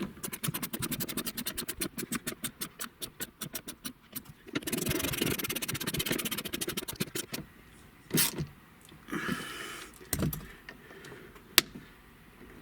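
Rapid mechanical clicking, about ten clicks a second for some four seconds, like a ratchet being worked. Then comes a rush of noise lasting two or three seconds, followed by a few scattered knocks and sharp clicks.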